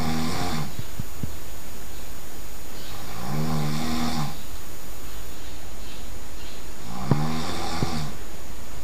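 A sleeping person snoring loudly. There are three snores about four seconds apart, each lasting about a second, over a steady low hum. A couple of short clicks fall within the last snore.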